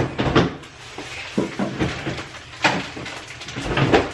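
Groceries being put away into an open refrigerator: packaging rustles and items knock against the shelves and door bins, with a few sharper knocks spread through.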